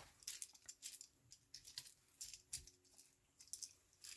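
Faint, scattered light clicks and rustles: a small bag of buttons being handled and opened, the buttons shifting inside.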